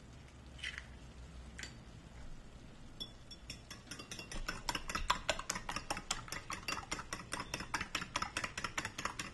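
Raw eggs being beaten by hand in a ceramic bowl: after a few separate taps, a metal utensil clinks rapidly and repeatedly against the bowl from about three and a half seconds in.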